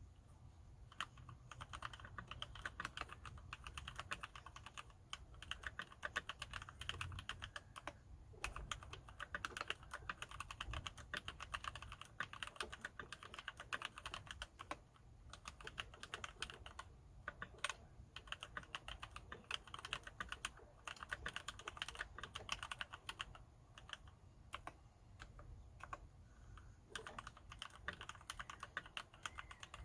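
Steady typing on a Ninja 87 Arc XD mechanical keyboard fitted with Gateron Yellow linear switches lubricated with Super Lube spray: a dense run of keystrokes with a few brief pauses.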